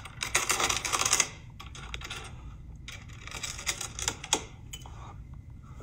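Metal jewelry chains and watches clinking and rattling as they are handled: a dense run of rapid clicks for about the first second, then scattered clicks.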